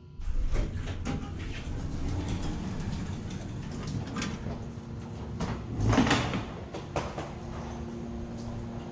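Rustling and knocking of a handheld camera carried against clothing while walking, with a louder thump about six seconds in and a low steady hum underneath in the second half.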